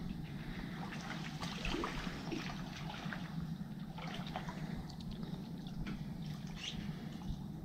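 Shallow water trickling and lapping against a small boat's hull, with light irregular splashes.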